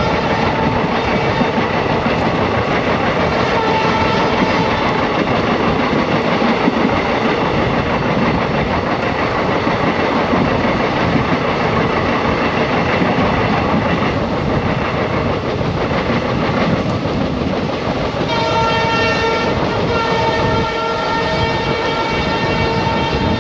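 Passenger train running at speed, heard from an open coach doorway: a steady noise of wheels on rails mixed with wind. Near the end the locomotive horn sounds in two long blasts, the second running on to the end.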